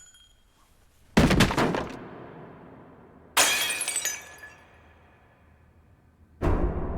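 Three sudden crashes of breaking, shattering glass: one about a second in, one near the middle with bright ringing high tones, and a heavier, deeper one near the end.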